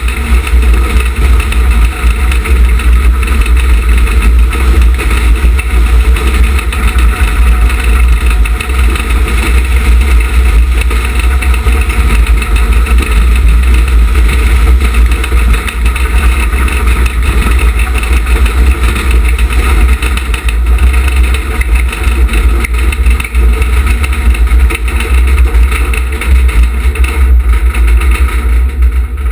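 Wheelbob's wheels rolling fast down a concrete bobsleigh track, a loud steady rumble mixed with heavy wind rushing over the microphone at speed.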